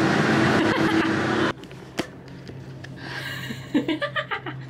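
Gondola terminal machinery running, a loud steady rumble with a hum, cut off suddenly after about a second and a half. What follows is much quieter cabin sound with a single click and faint voices near the end.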